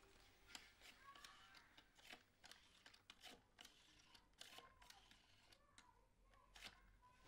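Rotary telephone being dialled: faint, irregular clicking of the dial being turned and running back, again and again.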